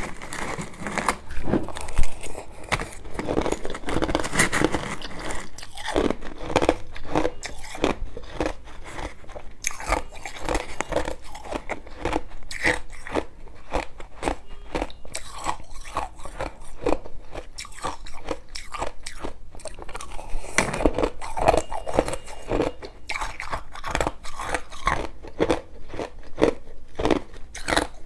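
Close-up crunching of crushed ice being bitten and chewed, a rapid irregular run of sharp cracks several times a second, loudest about two seconds in.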